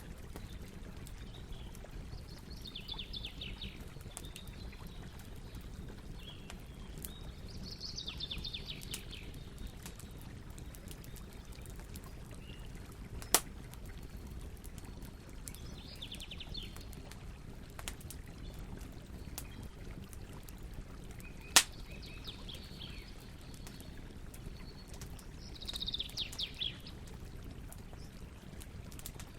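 Campfire burning with a steady low rumble and light crackling, broken by two sharp, loud pops, one near the middle and one about two-thirds through. Birds call in short bursts of rapid chirps several times.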